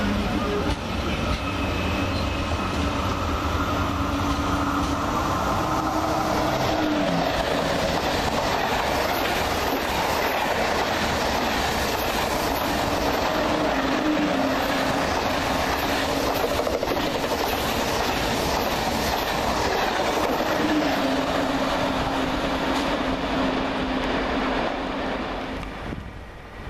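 TGV high-speed train running past a station platform: a long, steady rush of wheel and air noise with a clickety-clack of the wheels and a faint droning tone that comes and goes. The noise falls away just before the end.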